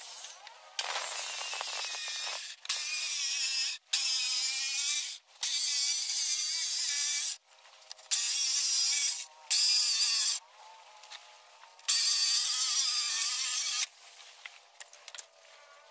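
Handheld electric circular saw cutting along a wooden boat plank in a series of short runs: about seven cuts of one to two seconds each with brief pauses between, the pitch wavering as the blade bites into the wood. It stops near the end.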